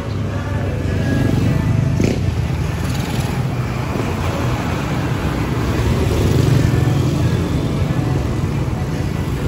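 Road traffic passing close by: a small pickup truck, motorcycles and a cargo truck driving past, the engine and tyre rumble swelling twice as vehicles go by, with background music under it.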